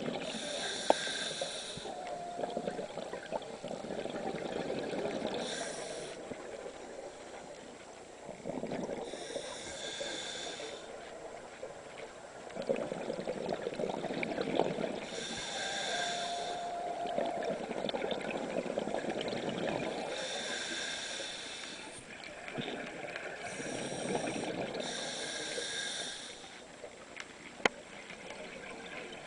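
Scuba diver breathing underwater through a regulator: a hissing inhale through the second stage every four to five seconds, each followed by a longer run of bubbling exhaust from the exhale. A sharp click sounds near the end.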